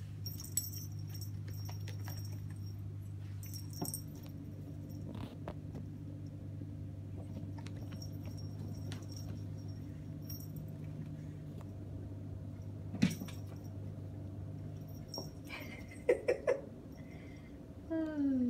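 A kitten playing with a catnip toy on a tile floor and carpeted cat tower: scattered light taps, clicks and scuffles over a steady low background hum, with a short falling vocal sound near the end.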